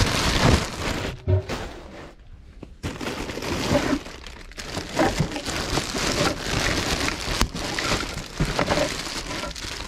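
Thin white plastic bag crinkling and rustling as it is handled and pulled open, with a short quieter spell about two seconds in.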